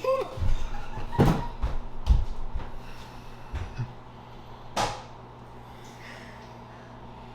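A run of dull thumps and knocks over the first three seconds, then a single sharp click about five seconds in.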